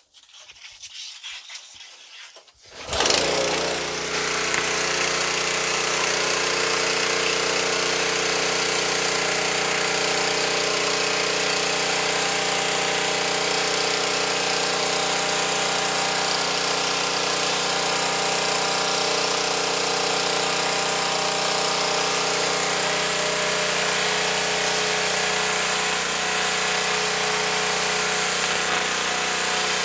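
Petrol-engined DeWalt 3100 PSI pressure washer starting up about three seconds in. It then runs steadily, the engine and pump working while the high-pressure jet hisses onto concrete.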